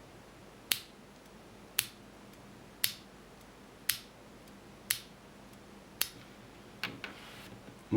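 Stock, unmodified Cherry MX Clear mechanical keyboard switch pressed and released sharply, giving a sharp clack as it snaps back, about six times at roughly one a second.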